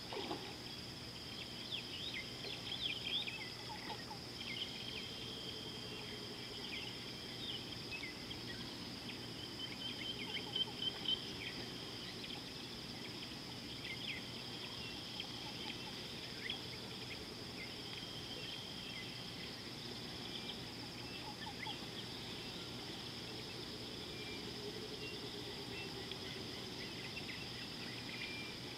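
Outdoor soundscape of a steady high insect drone with scattered short bird calls and chirps over it, the loudest a quick run of calls about ten seconds in.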